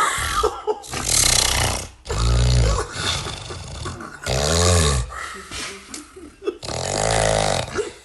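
A man snoring hard, with a deep, rattling snore on each breath. It sputters like a moped engine, with four long snores and shorter snorts between them.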